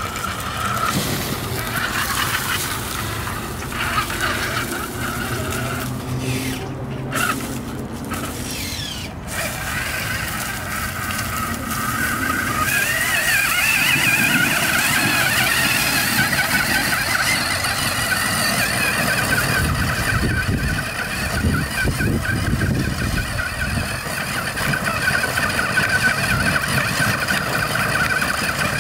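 RC rock crawler truck's electric drive motor and gears whining as it drives, the pitch rising and falling with the throttle and growing louder from about halfway through.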